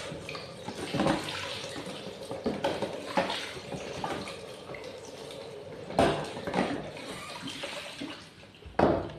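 Water running from a tap into a sink, with a few knocks and clatters; the loudest knocks come about six seconds in and shortly before the end.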